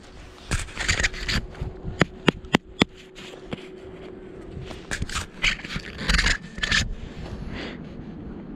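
Snowboard and boots scraping and crunching in deep snow in two bursts, with four sharp clicks in quick succession about two seconds in.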